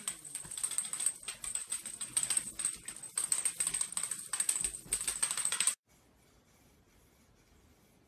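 Rapid, irregular clicking and tapping on a hardwood floor, like fast typing. It cuts off suddenly about six seconds in, and near silence follows.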